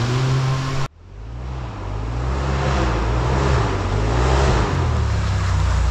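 Off-road side-by-side (SSV) race vehicle engines revving. The sound cuts off abruptly about a second in, then an engine comes back in faintly and grows louder, its pitch rising and falling as it revs.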